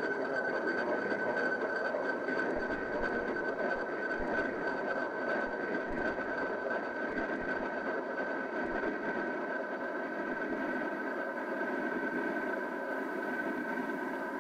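Experimental electronic drone: cassette-recorder audio from a Sony TCM-200DV run through a Mutable Instruments Beads granular processor, a steady noisy texture with one high tone held above it.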